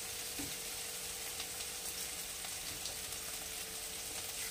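Masala paste and chopped tomatoes sizzling steadily in hot oil in a kadai, with faint scattered crackles and pops. The masala is being fried down to cook off its raw smell.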